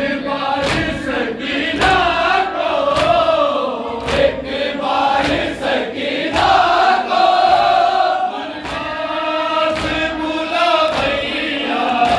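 A group of men singing a noha, a Shia lament, together in long held notes, with sharp slaps of hands striking chests in matam at irregular intervals about a second apart.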